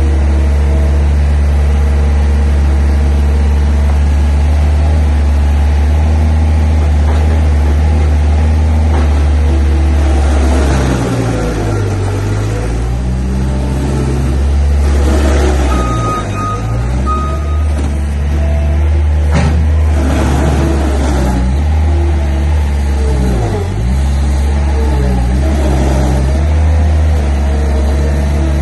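Mini loader's engine running steadily, dropping in pitch several times as it takes load and recovering, under a load test after an engine overhaul. A few short high beeps sound about halfway through.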